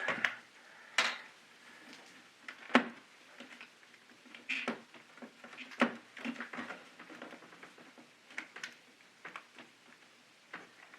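Scattered plastic clicks and knocks from a KeyTronic E3601 keyboard being pried apart by hand at its case clips, with sharp snaps about three seconds in and again near six seconds.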